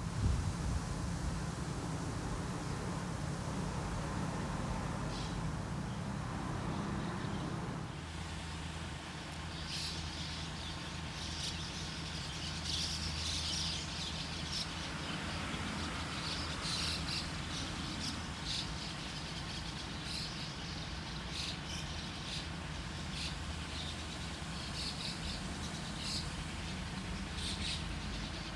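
Small birds chirping in short, repeated calls over a steady low rumble; the chirping becomes frequent about ten seconds in.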